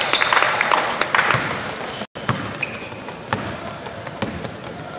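Basketball game in a gym: a ball bouncing on the court and sneakers squeaking, with voices from the floor and stands, louder in the first second or so. The sound cuts out completely for a moment about two seconds in.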